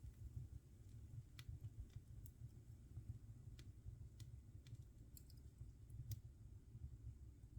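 Wood fire in a fireplace crackling quietly: scattered sharp pops and snaps, about one a second, over a low steady rumble of the flames.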